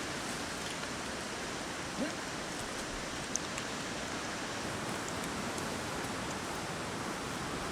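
Steady, even outdoor hiss of background noise, with a faint short tick about three and a half seconds in.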